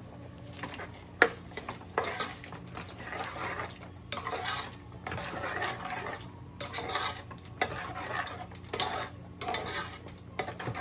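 Spoon stirring and scraping in a cooking pan in repeated strokes, with a sharp clink about a second in.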